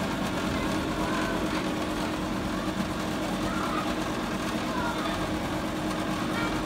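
Cotton candy machine running, its spinning head giving a steady motor hum, with voices chattering in the background.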